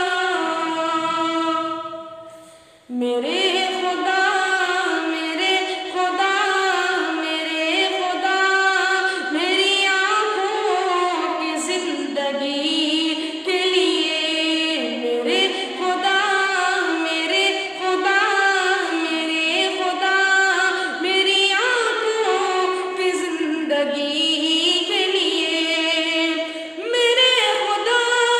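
A boy singing a naat, an Urdu devotional song, unaccompanied, in long ornamented held notes. Near the start a held note fades out, and after a brief pause the singing resumes.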